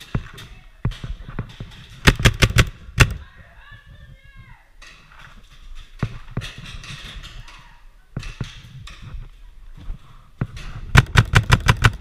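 Paintball markers firing in two quick strings of shots: about six shots a couple of seconds in, and about eight more in rapid succession near the end.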